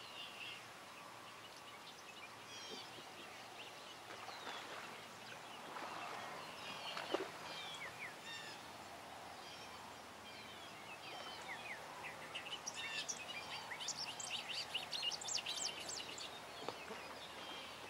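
Small birds chirping and calling in quick, short notes, growing into a dense rapid flurry of chirps about two-thirds of the way through. A single sharp click stands out at about seven seconds in.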